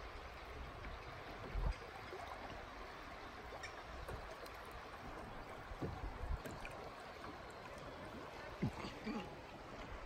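River water rippling and lapping against a moving kayak: a steady watery hiss with a few soft low thumps scattered through it.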